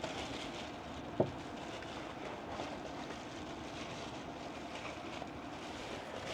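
Strong gusty wind rushing steadily around and through the truck camper, with a single sharp click about a second in.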